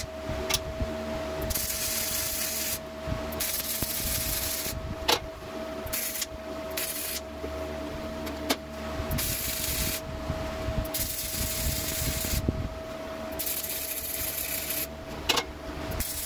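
Wire-feed welder tack-welding steel hooks to a steel rack: a string of short crackling, sizzling arc bursts, each a second or so long with brief pauses between, as each hook is spot-welded. A steady hum runs underneath.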